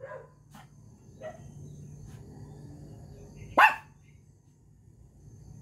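Miniature pinscher barking: a faint short bark about a second in, then one loud, sharp, high bark about two seconds later.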